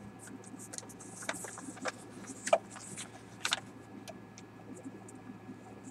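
Sheet of paper being folded and pressed down by hand, with scattered crinkles, rustles and a few sharper ticks.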